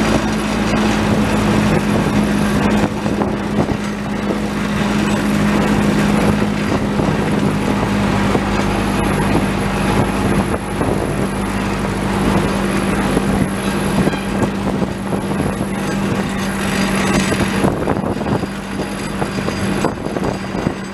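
Small narrow-gauge locomotive engine running steadily as the train pushes a flat wagon loaded with rails along the track, with the rattle of wheels on rail. The steady engine hum eases off a little near the end.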